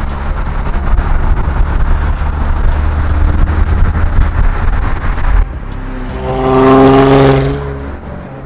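Car sounds: a loud low rumble of engine and road noise, then, after a sudden change about five seconds in, an engine revving up to a pitched exhaust note that holds for a moment and fades, cutting off abruptly at the end.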